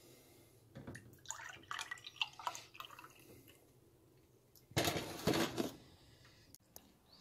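Close-up wet mouth sounds of eating: a run of small smacks and clicks, then a louder noisy burst about five seconds in.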